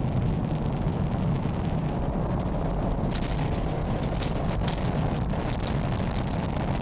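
Space Shuttle Columbia at liftoff: a steady, deep rocket rumble, with crackling from about three seconds in. It comes from launch footage played over loudspeakers.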